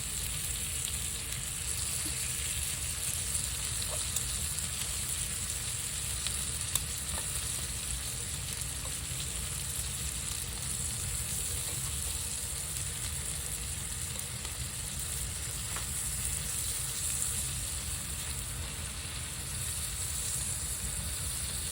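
Deer backstrap steaks sizzling steadily in a hot frying pan while they sear.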